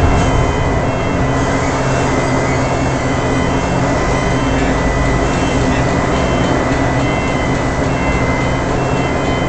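Steady drone of heavy machinery running: a low hum with faint high-pitched whines that come and go.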